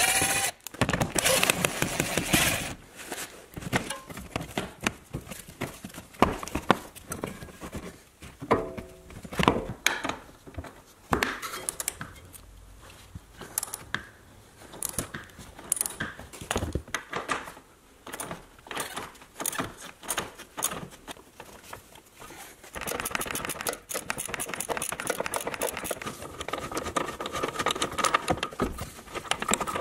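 Hand socket tools working bolts under a car: rapid metallic clicking and knocks as the plastic undertray screws are undone with an 8 mm socket on an extension, then as the front lower control arm bolt is loosened with an 18 mm socket, breaker bar and wrench. The last several seconds hold a continuous run of fast, even clicking as the bolt is worked out.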